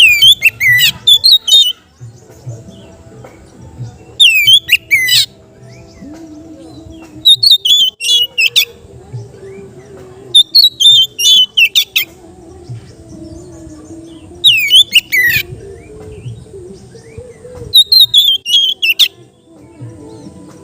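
Oriental magpie-robin (kacer) singing in loud, open bursts. Each burst is a short phrase of high, ringing whistles that sweep down in pitch, about six phrases with pauses of two to three seconds between them.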